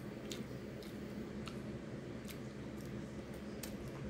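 Close-up chewing with wet mouth clicks and smacks, short and sharp and about once a second, over a steady low hum.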